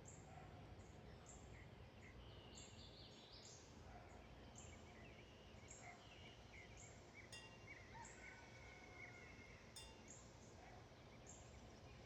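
Faint outdoor ambience: distant birds chirping and calling, with a short high note repeating about every half second to second, over a low steady rumble.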